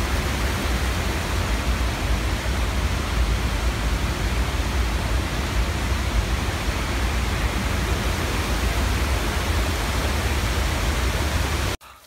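Water pouring over a dam spillway and rushing down a rocky streambed, a steady rushing noise with a deep rumble, cutting off abruptly just before the end.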